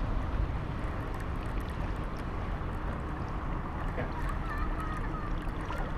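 Steady wind rushing over the microphone and water lapping around a small boat, with a faint wavering whistle a little past halfway through.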